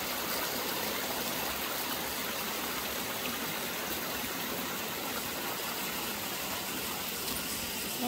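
Shallow mountain stream running over stones: a steady, even rush of water.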